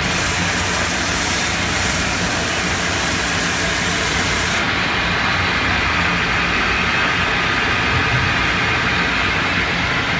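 Belt sanding machine running, with a gypsum lamp piece pressed against the moving abrasive belt. A harsh grinding hiss stops a little under halfway through, leaving the machine's steady running noise.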